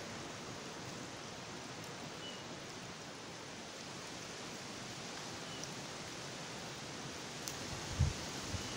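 Steady hiss of water trickling and dripping down a wet, mossy rock face, with a few faint drip ticks. A short dull thump comes near the end.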